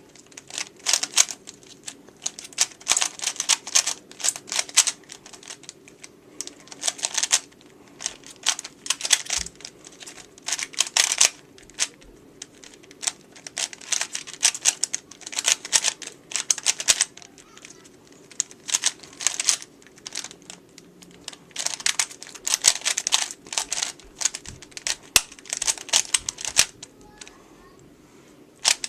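A 3x3 Rubik's cube turned fast in a speedsolve: rapid plastic clicking and clacking in bursts of a second or more, broken by short pauses.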